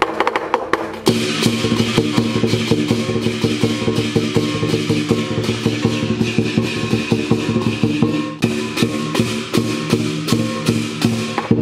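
Lion dance percussion playing a fast, loud rhythm: a drum beaten rapidly with cymbals crashing and a ringing tone held underneath. It steps up in loudness about a second in.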